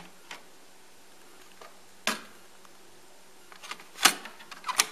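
Akai CS-M40R cassette deck's eject and door mechanism: a light click as the eject button is pressed, a sharp click about two seconds in as the cassette door opens, then a cluster of plastic clicks and clatter, loudest just after four seconds, as a cassette is handled in the open door.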